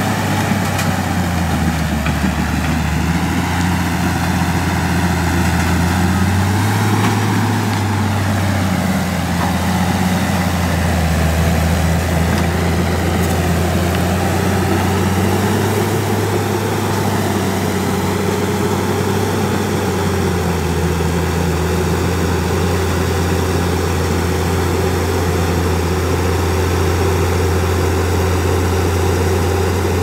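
Crawler bulldozer's diesel engine running steadily as the machine pushes and grades dirt, its pitch shifting up and down several times as the load changes.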